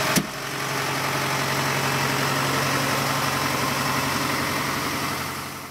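Deutz-Fahr AgroXtra tractor engine running steadily, with a dense hiss of machine noise over its hum. There is a short click just after the start, and the sound fades out near the end.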